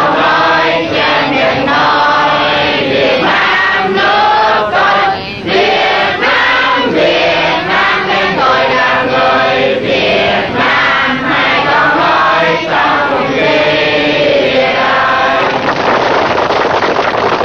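A large crowd of men, women and children singing together in unison, then breaking into clapping about two seconds before the end.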